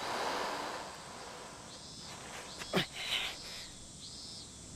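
Outdoor ambience with an insect chirping in a steady rhythm, about one call every 0.8 s. Over the first second a rush of noise fades away, and a short falling swish comes near the middle.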